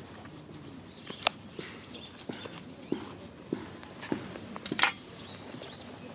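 Disposable wooden chopsticks burning in a Coca-Cola-can stove, crackling with scattered soft pops and two sharp snaps, one just over a second in and a louder one near the end.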